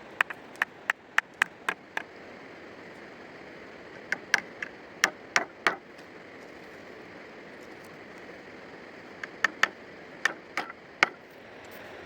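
Sharp knocks struck in three quick runs of about seven or eight blows each, over a steady hiss.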